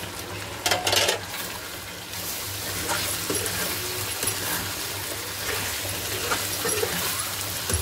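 Spices being stirred into mutton heart and liver frying in a kadhai: a spatula scraping and clinking against the pan over a steady sizzle. A short loud clatter about a second in.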